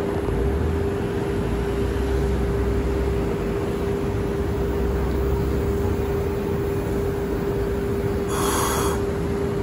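Hiroden 650-series streetcar pulling away slowly, with a steady electrical hum and a low rumble from its motors for the first several seconds. A short hiss comes near the end.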